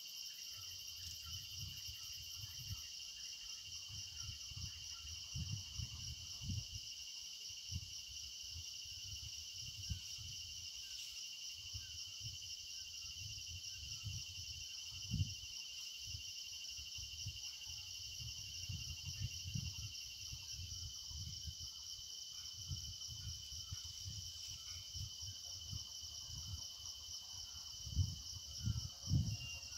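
Steady insect chorus, several shrill unbroken tones layered together, with faint short chirps above it. Low thumps and rumbles on the microphone come and go, the loudest near the end.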